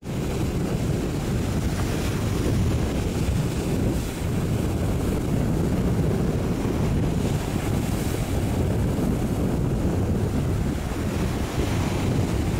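Steady wind noise on the microphone over choppy water, as a fishing boat motors past.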